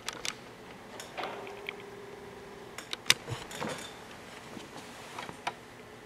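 Scattered small clicks, knocks and rustles of someone moving and handling things at a church pulpit microphone. There is a faint steady tone for about a second and a half after the first second, and the sharpest click comes about three seconds in.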